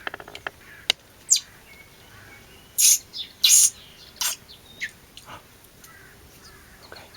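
Common blackbird giving a string of short, sharp calls at uneven intervals, the two loudest close together about three seconds in.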